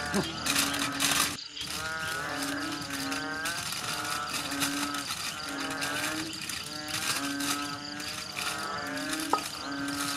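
Aluminium foil crinkling as it is folded and pressed around a whole chicken, under instrumental music with a wavering melody and a short low note repeating about once a second.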